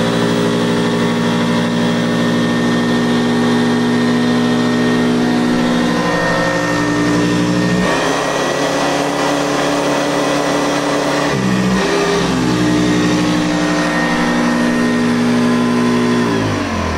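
Hoover Convertible upright vacuum running: a steady motor hum and whine that changes tone twice partway through, then winds down in pitch as it is switched off near the end. Its brush roll has just been fitted with new bearings in place of dry ones, and it runs smoother for it.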